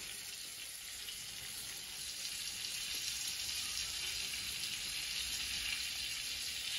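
Coconut-crusted crayfish frying in hot oil, a steady sizzle that grows a little louder about two seconds in.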